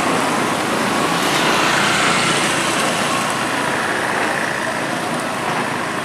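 Motorcycle engines and road traffic noise as motorbikes cross the railway tracks, a steady level throughout.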